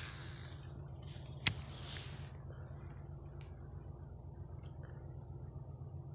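Steady high-pitched drone of insects chirring, with one sharp click about a second and a half in.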